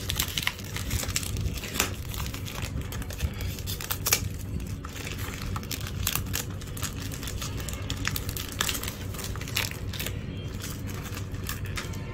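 Clear cellophane shrink-wrap being torn open and peeled off a cardboard perfume box by hand, with irregular crinkling and crackling throughout.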